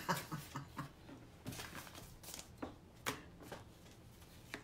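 Faint rustling of paper greeting cards being handled, with a few light taps and clicks in the second half.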